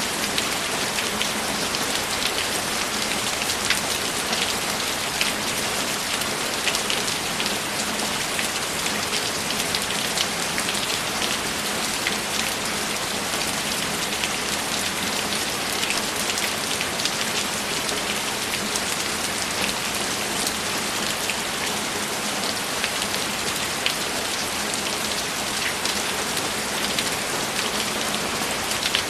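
Steady, even rainfall, with many sharp ticks of single drops landing on a hard surface.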